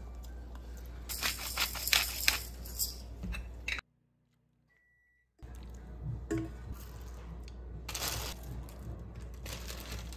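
Light metallic clinks and rattles of a ladle against a stainless-steel pot as vegetable broth is served, over a steady low hum. The sound cuts out completely for about a second and a half midway.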